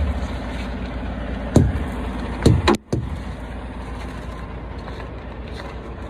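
Tire hammer striking a tractor-trailer's tires twice, about a second apart, giving dull thuds: the tires are being thumped to check their inflation. A steady low rumble runs underneath.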